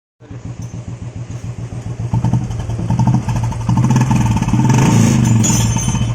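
Royal Enfield Classic 350's single-cylinder UCE engine running, getting louder from about two seconds in and easing back near the end. It has freshly replaced hydraulic tappets and oil pump, and the mechanic calls the engine completely silent, with no tappet noise.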